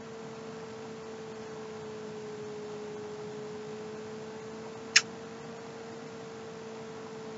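A steady humming tone over a faint hiss, with one short click about five seconds in.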